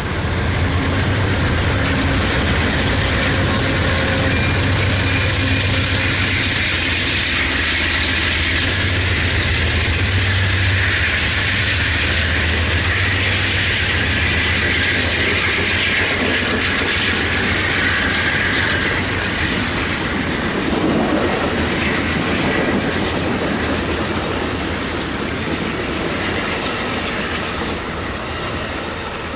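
Amtrak Southwest Chief passenger train rolling past as it departs: a steady, loud rail noise of the cars going by, easing slightly near the end.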